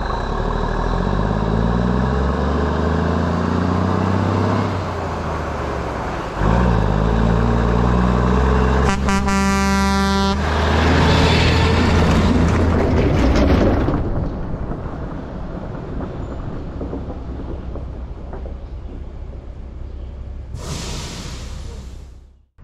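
Heavy truck's diesel engine revving up twice as it drives over the camera, with a truck air horn blast of about a second and a half near the middle. The engine and tyre noise then fades, and a brief whoosh comes just before the sound cuts off.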